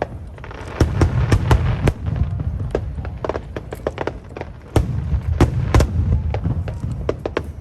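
Aerial fireworks show: shells bursting with low booms and many sharp cracks, in two dense volleys about a second in and about five seconds in.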